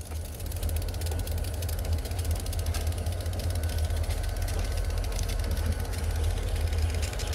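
Diesel locomotives of a New England Central freight train running, a steady low engine drone.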